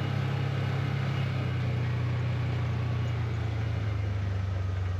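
A vehicle's engine running steadily with a low hum, its pitch dropping slightly about four seconds in.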